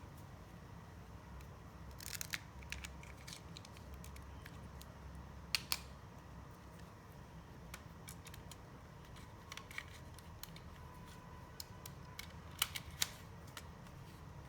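LEGO plastic pieces and rubber bands being handled: scattered sharp clicks and taps, a few louder pairs, over a low steady hum.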